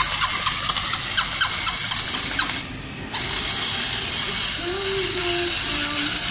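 Battery-operated tin puppy dog toy running, its small electric motor and gears whirring with a regular clicking about three times a second. The sound drops away for about half a second midway, then the whirring resumes steadily.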